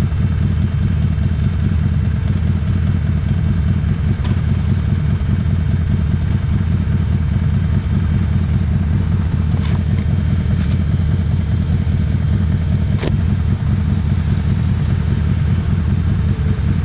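Harley-Davidson Street 500's 500 cc V-twin idling steadily through its aftermarket Vance & Hines exhaust, with a few faint clicks from the surrounding traffic.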